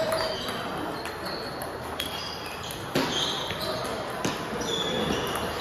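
Table tennis balls clicking off bats and tables, an irregular series of sharp clicks with short high pings, the loudest about three seconds in, over the murmur of voices in a large hall.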